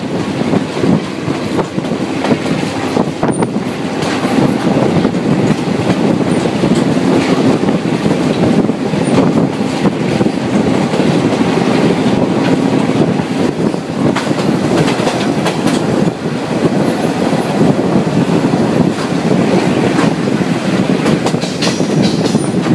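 Passenger train of the Chihuahua al Pacífico railway (the Chepe) running along the track, heard close up from an open doorway of a car: a loud, steady rumble of wheels on rail with frequent clicks and clatter.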